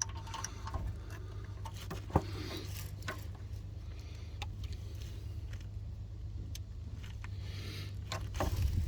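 Scattered light clicks and knocks from hands working on the washer reservoir and its fittings, one sharper knock about two seconds in, over a steady low hum. A low rumble grows louder near the end.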